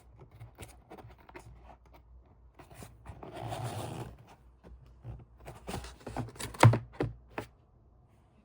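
Hands packing small cards and their wrapping: scattered light taps, clicks and scrapes, a longer rustle about three seconds in, and a sharper tap a little before the end.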